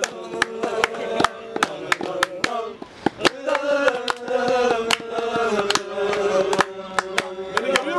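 A man singing long, wavering, drawn-out notes that slide between pitches, with sharp hand claps keeping a quick rhythm, about three to four claps a second.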